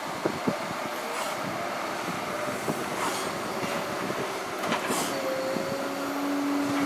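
Liebherr crawler excavators running on a brick rubble pile: a steady diesel and hydraulic drone with scattered knocks of rubble. Near the end come short metallic squeals, one high and then one lower.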